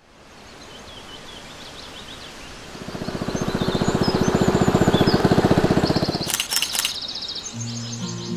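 Small motorboat engine puttering past on a river, swelling about three seconds in and fading away a few seconds later, over birds chirping. A brief high rattle follows, and guitar music begins near the end.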